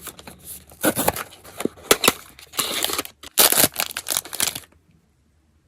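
Blind box packaging being handled: a wrapper crinkling and tearing in irregular bursts, stopping about four and a half seconds in.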